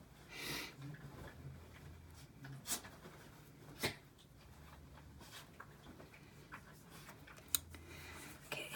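Faint handling sounds: soft rustles of skin and sleeves as fingertips pick up CC cream from the back of the hand and dot it onto the face, with a few light sharp clicks.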